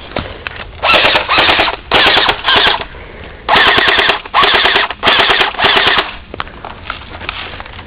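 Rapid automatic gunfire in eight short bursts, four in quick succession, a brief pause, then four more.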